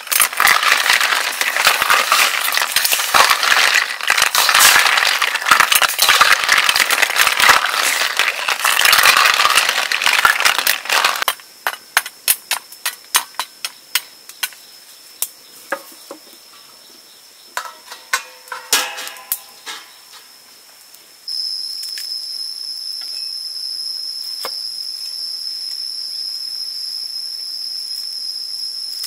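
Snails boiling hard in coconut water in a steel wok: a loud, dense bubbling crackle for about the first eleven seconds. Then come sparse pops and crackles of the wood fire under the wok, and about two-thirds through a steady high-pitched insect drone sets in.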